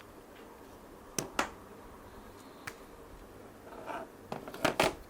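Sharp clicks and taps of small parts being handled at a workbench: two about a second in, a single click near three seconds, and a quick run of several near the end.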